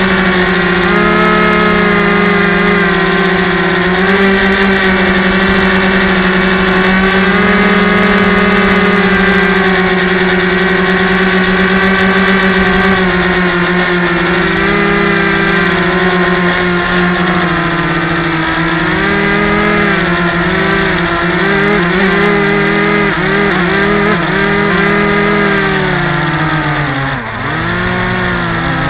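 Electric motor and propeller of a Yellow Bee RC airplane whining in flight, heard close up from a camera mounted on the plane. The pitch holds steady for the first half, then wavers up and down with throttle changes and drops near the end as the throttle comes back.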